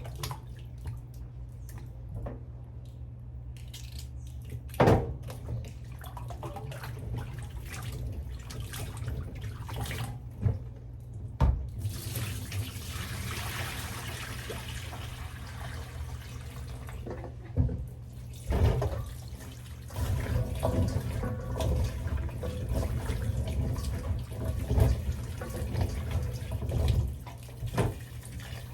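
Tap water running into a kitchen sink for a few seconds midway, among sharp knocks and clatter of pieces of cassava and a pot being handled. A steady low hum sits underneath throughout.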